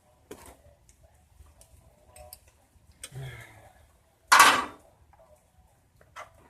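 Hand tools clinking and tapping against metal in an engine bay, scattered light clinks, with one louder, noisy burst of about half a second a little over four seconds in.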